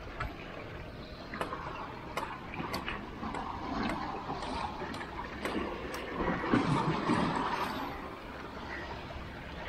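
Water lapping and washing against rocks, with one larger wash swelling up a little past halfway and dying away, and small clicks scattered through.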